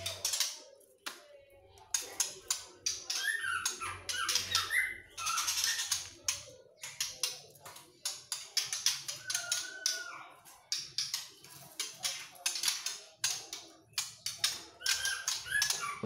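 Caged birds chirping with a few short wavering calls, over a running clatter of quick clicks and rattles.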